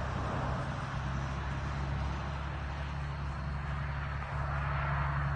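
Straight-piped Caterpillar 6NZ diesel in a 2000 Kenworth W900L running, a steady low drone with a rising hiss about four seconds in.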